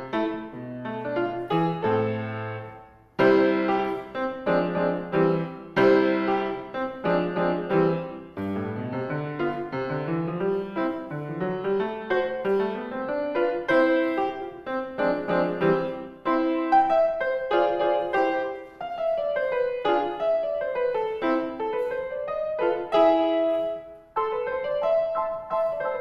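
Solo grand piano played live: a phrase that dies away about three seconds in, then a loud new entry, with rising and falling runs of notes later on.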